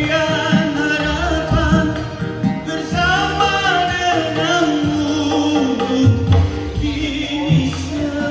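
A man singing live into a microphone over a backing track with strong bass drum beats. It is played loud through a Baretone MAX12HD Plus active speaker system with a 15-inch subwoofer, as a sound check.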